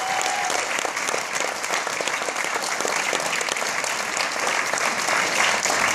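Audience applauding steadily, a dense patter of many people clapping at once.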